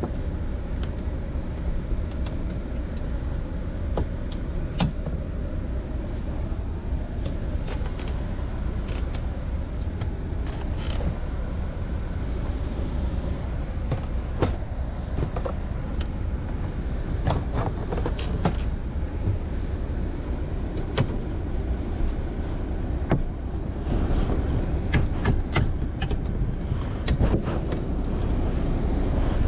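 Scattered clicks and rustles of a car headliner and its plastic trim clips being pulled loose by hand, over a steady low rumble. The clicks come more often towards the end.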